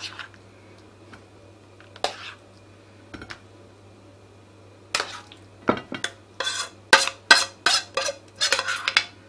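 A spoon scraping and knocking against a non-stick frying pan and the plates while the pan is emptied onto toast: a few separate clinks at first, then a quick run of scrapes and taps over the last four seconds or so.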